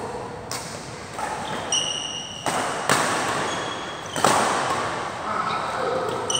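Badminton rally in a large hall: sharp racket-on-shuttlecock hits every second or so, with short high squeaks of shoes on the court floor between them.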